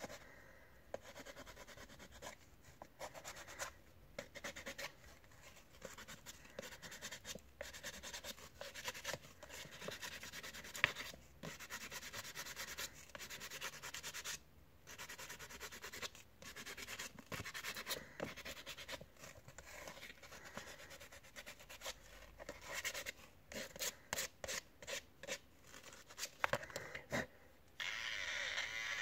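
Sandpaper rubbed by hand over the plastic housing of a Wahl Sterling 2 Plus trimmer: irregular scratchy strokes with short pauses, quickening in the last few seconds. A steadier, louder noise comes in just before the end.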